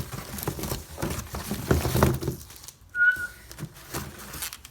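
Knocks and rustling of things being handled and set down, then one short, high, steady whistle-like tone about three seconds in.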